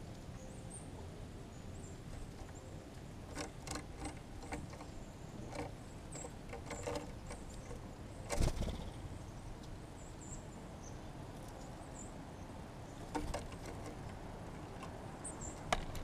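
Outdoor ambience at a bird feeder: a steady low rumble with faint, short, high chirps from small birds scattered throughout. Several sharp taps come and go, and the loudest sound is a single thump about eight and a half seconds in.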